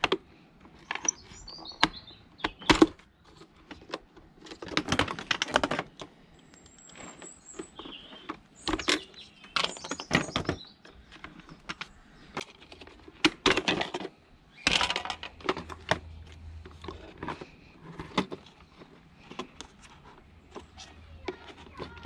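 Plastic parts of a Dyson DC41 vacuum cleaner's ball housing being handled and taken apart with a screwdriver: irregular clicks, knocks and rattles of plastic, screws and tool.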